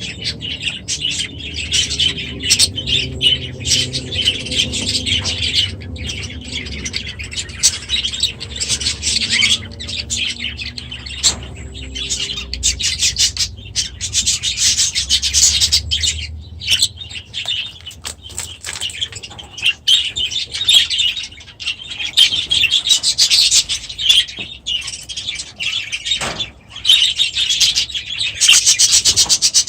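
A flock of budgerigars chattering and warbling together in a continuous dense stream of high chirps.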